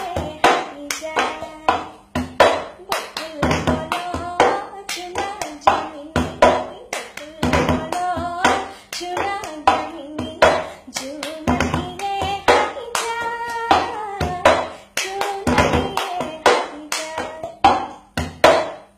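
A young woman singing while playing a cup rhythm: hand claps and a plastic cup knocked and slapped on a tabletop in a quick repeating pattern under her sung melody.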